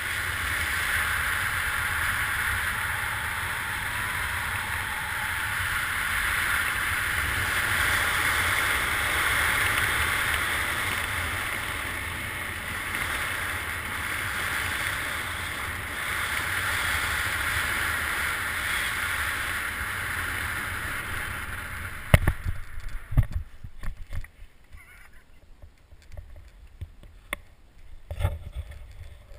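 Airflow rushing over the camera's microphone during a parachute descent, a steady rush that stops abruptly about 22 seconds in at touchdown. A few knocks and thumps follow over much quieter rustling.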